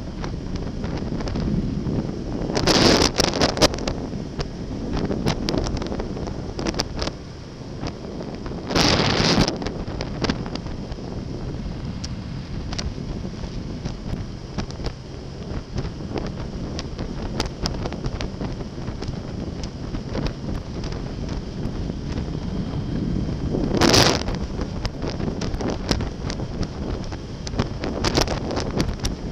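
Wind rushing over the microphone of a Yamaha XJ6 Diversion motorcycle riding at road speed, a steady dense roar with three louder surges about three, nine and twenty-four seconds in.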